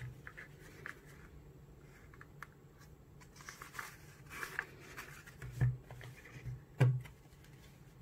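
Cardboard lighter gift box and its paper insert being handled: light rustling and small clicks as the lighter is taken out, with two soft knocks a little over a second apart near the end.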